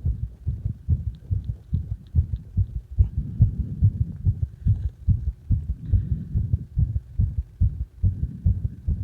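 A heartbeat heard close up, a fast, unbroken run of low thumps, given as heard during CPR.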